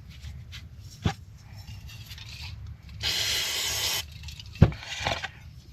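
Corroded outboard reed-plate parts being handled for pre-soaking: a sharp click, then a hissing rush lasting about a second, then a sharp knock.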